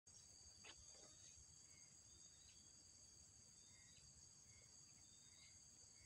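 Very faint insect chorus: a steady high-pitched drone, with short faint chirps about once a second.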